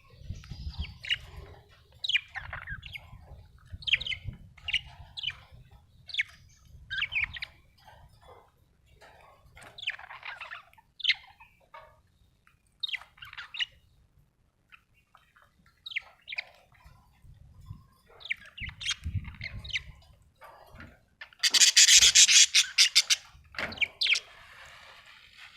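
Budgerigars chirping with short, quick calls repeated throughout. About three quarters of the way through comes a loud, harsh, rasping burst lasting about a second and a half.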